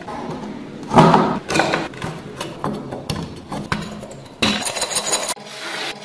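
Chisel chipping and scraping at a thick dried crust on an old hatchet: a run of sharp knocks and crumbling scrapes, the hardest about a second in, over background music.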